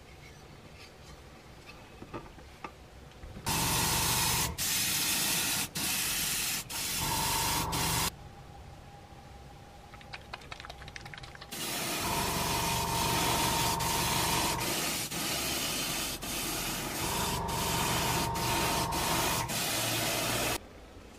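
Grey primer sprayed onto plastic scale-model truck parts in long hissing bursts with brief breaks: one burst runs from about 3.5 to 8 seconds, and a longer one from about 12 seconds almost to the end. Rapid clicking comes between the two bursts.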